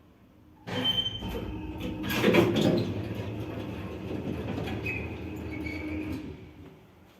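A 2008 ShchLZ passenger elevator starts suddenly about a second in and runs with a loud, harsh hum and rattle, loudest two to three seconds in, with a faint high whine. It eases off shortly before the end. The strong hum is the fault the owner points to.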